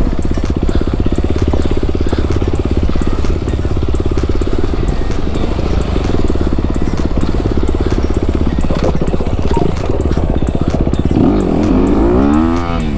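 Honda CRF250 four-stroke dirt bike engine running under load on the trail. Near the end the revs climb and drop several times in quick succession.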